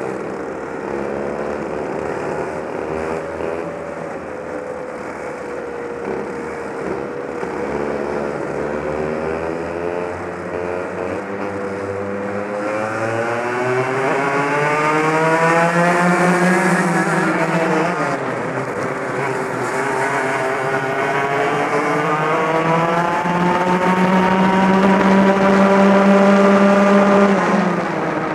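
Two-stroke racing kart engine heard from onboard, held at high revs, its pitch climbing along the straights and dropping sharply as the driver lifts for corners, once about 17 seconds in and again near the end.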